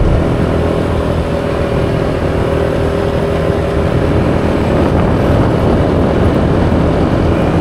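A motorbike ride: the engine running under a steady rush of wind and road noise on the microphone, with a faint engine hum that fades about four and a half seconds in.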